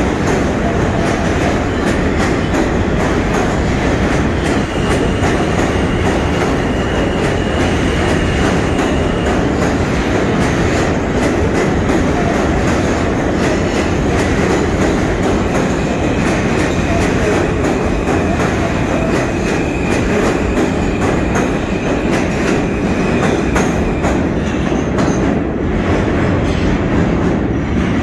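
R160 subway train running past close alongside in the tunnel, a loud steady rumble with the wheels clicking over rail joints. A faint high tone is held for a few seconds, twice. Near the end the sound thins out as the last car pulls away down the tunnel.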